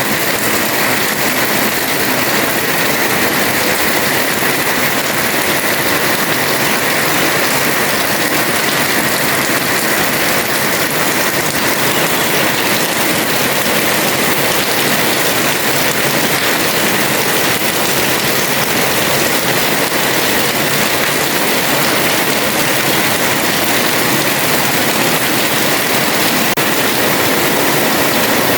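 Heavy rain falling steadily on a house terrace, a constant dense hiss with no letup.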